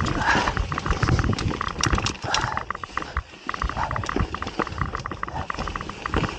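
Mountain bike descending a dry, rocky dirt trail: tyres rumbling and crunching over dirt and stones, with rapid clicking and rattling from the bike and a low rush of wind on the microphone.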